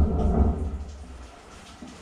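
Heavy low rumble of a high-pressure sewer jetter driving a Warthog root-cutting nozzle through a drain line. It fades out over the first second, leaving only a faint hum.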